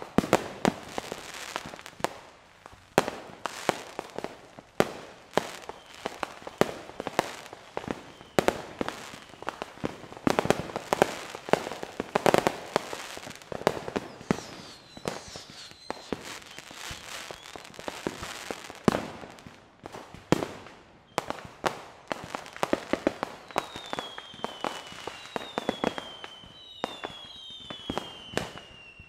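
Fireworks display: a rapid, irregular series of sharp bangs from aerial shells bursting. Short falling firework whistles come in around the middle and several times in the last few seconds.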